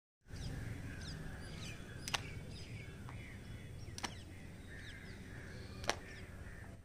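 Skipping rope slapping the ground in slow, single swings: three sharp smacks about two seconds apart. Birds chirp throughout over a low outdoor rumble.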